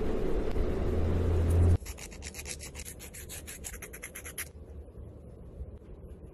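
A loud low rumble cuts off suddenly near two seconds in. Then a nail file rasps quickly back and forth across a fingernail, many short strokes a second for nearly three seconds, and stops.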